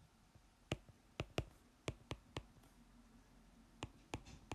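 Pen tip tapping on the writing surface while equations are handwritten: about eight short, sharp clicks at uneven intervals.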